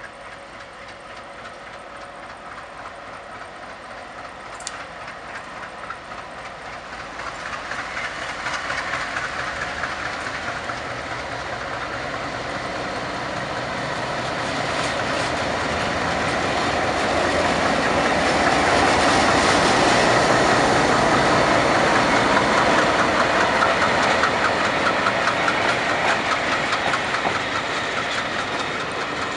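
MLW MX627 diesel-electric locomotive hauling a freight train as it approaches and passes. Its engine grows steadily louder to a peak about two-thirds of the way through, then eases as the freight wagons roll by with their wheels clacking over the rail joints.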